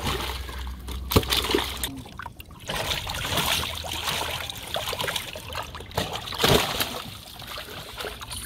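Live fish thrashing and splashing in the water of a plastic-tarp-lined boat hold, in irregular bursts with a few sharp slaps.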